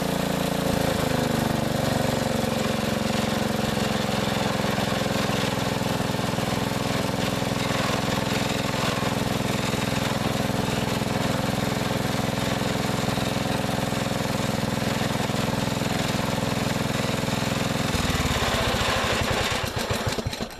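Bolens lawn tractor's 13.5 hp, 344 cc Briggs & Stratton engine running at a steady speed, easing to a slightly lower speed about a second in. About eighteen seconds in it stops, winding down over a couple of seconds.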